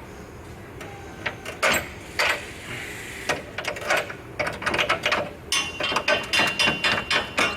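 Hand socket ratchet clicking in short runs while bolts are undone, with scattered metal clinks and knocks. The clicking gets fast and dense in the last two seconds.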